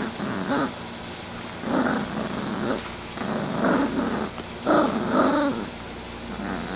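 A chihuahua–terrier mix puppy growling in play, in about four short bouts.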